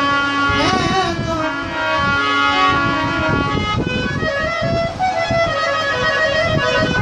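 Bhajan music: a reed instrument, a harmonium, playing a melody in held notes over a steady drum beat.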